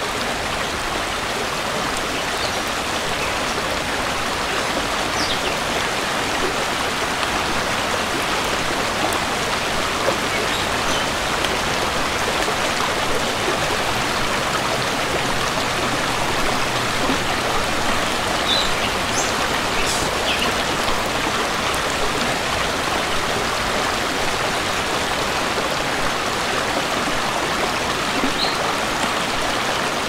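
Nature sound of steady rushing water, with a few scattered drips.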